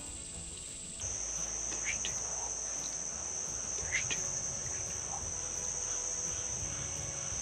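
Insects trilling steadily at a high pitch. About a second in, the pitch drops a little and the trill carries on. Two faint short chirps come through around two and four seconds in.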